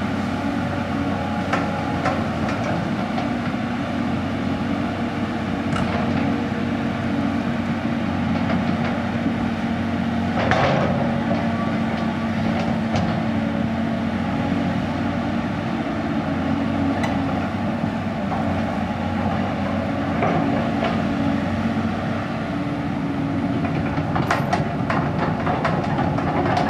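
Caterpillar 320D excavator's six-cylinder diesel engine running steadily under hydraulic work, with scattered metallic knocks and clanks from the machine, the loudest about ten seconds in and a few more near the end.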